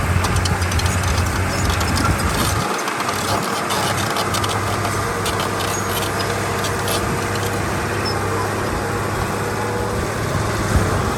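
Heavy diesel earthmoving machinery running under load: a steady low engine drone with scattered rattles and clicks. The drone drops away briefly about three seconds in, then picks up again.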